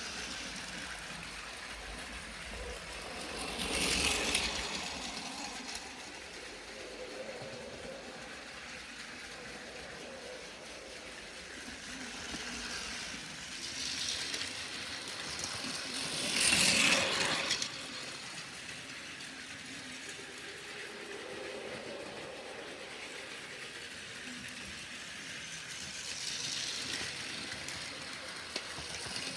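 Battery-powered Plarail toy Shinkansen trains running on plastic track: a steady whirring motor and rattling wheels, swelling several times as a train passes close by, loudest about 17 seconds in.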